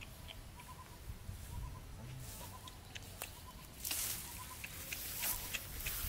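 Dry grass rustling and footsteps as a person pushes through tall grass, getting louder from about four seconds in. Under it, a faint short high call repeats every half second or so.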